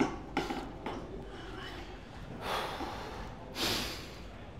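A man breathing hard with forceful, noisy breaths a second or so apart, the loudest two in the second half, from the strain of a heavy weightlifting set.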